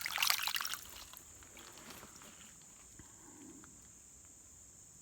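Creek water splashing and sloshing as a freshly dug arrowhead is rinsed by hand, stopping about a second in. After that, only a steady high insect drone over quiet.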